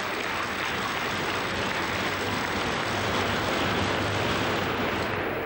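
Audience applauding in a sports hall, a steady even clatter that dies down near the end.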